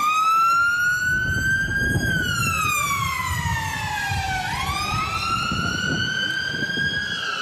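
Emergency-vehicle siren wailing. It cuts in suddenly, climbs in pitch over about two seconds, slides down until about four and a half seconds in, then climbs again and starts to fall near the end.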